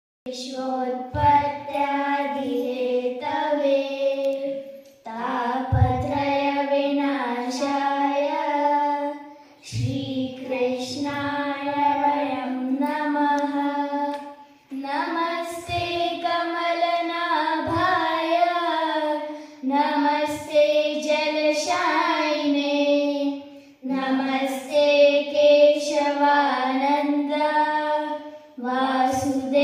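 Children singing a slow devotional hymn unaccompanied into a microphone, amplified through a PA loudspeaker. The hymn comes in held phrases of about four to five seconds, with short breaks between them.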